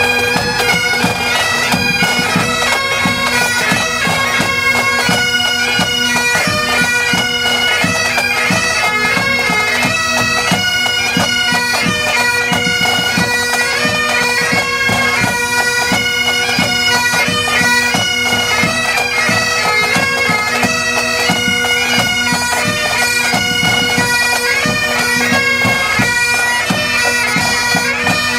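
Several Great Highland bagpipes playing a tune together, the melody moving quickly from note to note over the steady hum of the drones.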